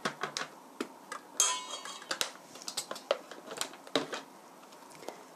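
Metal spoon clinking and scraping against a stainless steel mixing bowl: a run of short, scattered clinks with one sharper ringing strike about a second and a half in. Toward the end, a few knocks as bottles and jars are handled on the table.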